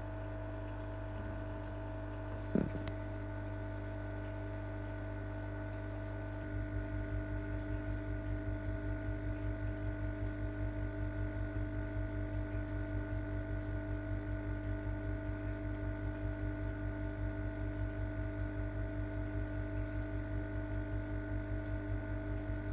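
Steady electrical hum of aquarium pumps, several constant tones held together over a low rumble. A single click comes a couple of seconds in, and from about six seconds in a low throbbing sets in, about four beats a second.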